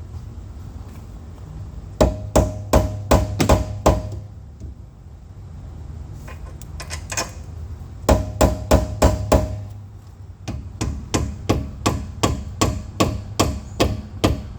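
Hammer blows on metal in three quick runs of about three strikes a second, each with a short ring, as a control arm part is driven into place in a car's front suspension. The last run is a little softer.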